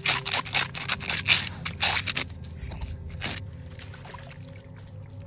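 A dog digging in snow and wet earth with its front paws: a quick run of scraping strokes for about two seconds, then one more scrape about three seconds in.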